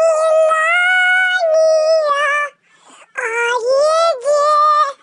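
A high-pitched voice singing long, wavering held notes in two phrases, with a short break about halfway through.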